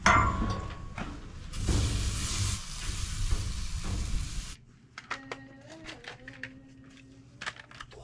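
Meat and hot dogs sizzling on the hot grate of a gas grill, a steady hiss. The sizzle cuts off suddenly about four and a half seconds in, leaving quiet room sounds with small clicks.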